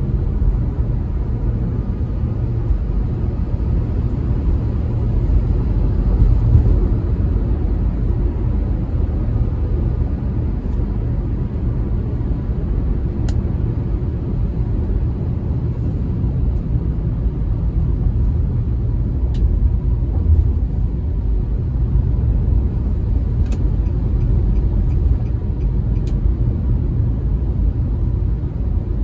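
Steady low rumble of a car driving on a city road, heard from inside the cabin: engine and tyre noise, with a few faint ticks.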